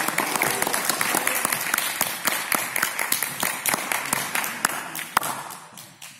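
Spectators clapping in applause for a point awarded in a kendo bout, the clapping thinning out and fading away toward the end.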